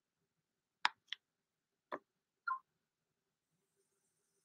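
Four short, sharp clicks of a MacBook laptop's trackpad, three packed into the first two seconds and one more about half a second later.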